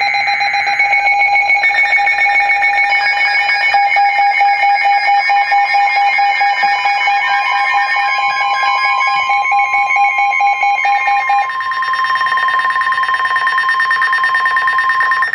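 NOAA Weather Radio alert alarms for a Special Marine Warning: several steady electronic alarm tones and rapid beeps of different pitches overlap. They come in one after another over the first few seconds and all cut off together at the end.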